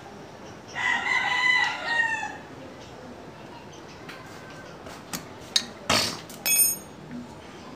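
A rooster crowing once, a call of about a second and a half starting about a second in. Near the end come a few sharp clicks and a short metallic clink, like hand tools knocking on metal.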